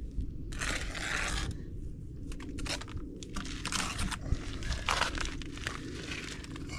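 Steel bricklaying trowel scraping wet mortar on brickwork: one longer scrape about half a second in, then a string of shorter scrapes and knocks.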